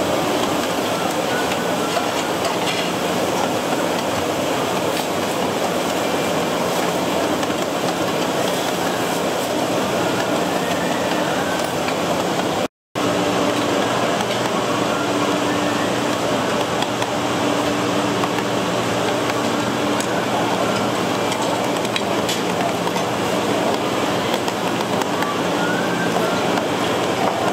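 Steady rushing noise with a low hum, typical of a busy street-food stall. It drops out for an instant about halfway through.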